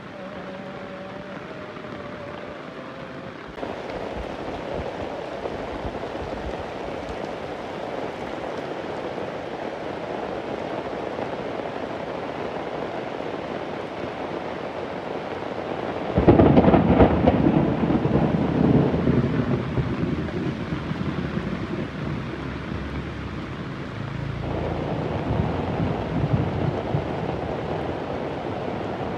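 Heavy rain falling steadily, with a loud crack of thunder about halfway through that rumbles on for several seconds as it fades.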